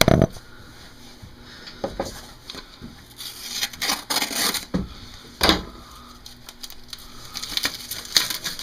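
Hand tools and metal engine parts being handled: a few sharp metallic clinks and knocks, with short scraping rustles in between.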